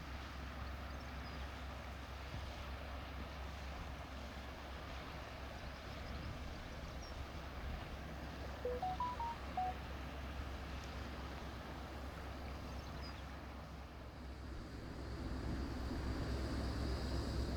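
A ship's engine runs with a steady low rumble that grows louder near the end, with wind on the microphone; around the middle comes a short run of five quick stepped whistled notes.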